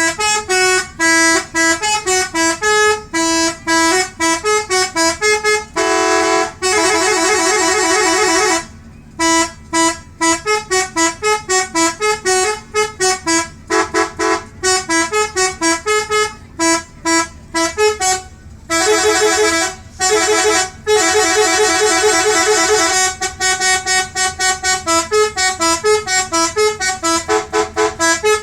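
Telolet horn, a set of multi-tone vehicle air horns, playing a fast tune of short honked notes that step up and down in pitch. Longer held chords come about six seconds in and again around twenty seconds in.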